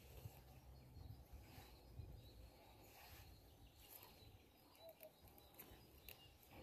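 Near silence: faint outdoor room tone with a low rumble that fades out after about two seconds, and a few faint, short clicks.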